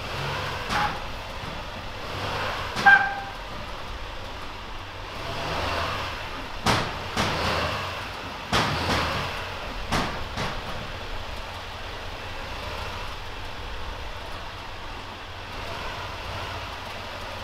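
Chevrolet Silverado HD pickup with the L5P Duramax diesel running as it rolls forward and back and brakes hard to settle its freshly adjusted torsion-bar front suspension: a low steady engine rumble under several clunks in the first ten seconds, one with a short squeak about three seconds in.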